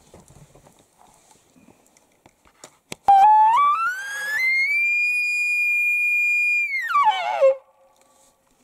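Elk bugle call blown through a hunter's bugle with a corrugated grunt tube, imitating a bull elk. After faint rustling, the call starts about three seconds in, climbs in steps to a high held whistle for about two seconds, then slides back down low with a wavering finish.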